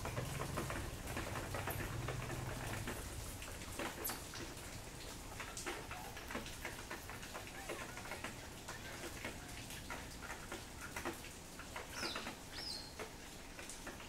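Quiet outdoor ambience of scattered faint clicks and ticks, with a low hum for the first few seconds. A short high chirp falls in pitch about twelve seconds in.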